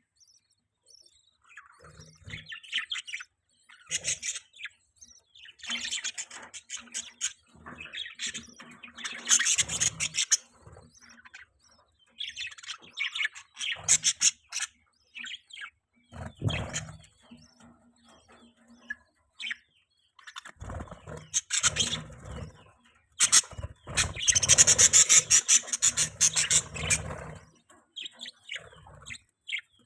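Budgerigar chirping and warbling in irregular bursts of rapid high chirps with short pauses between them, loudest and most continuous near the end.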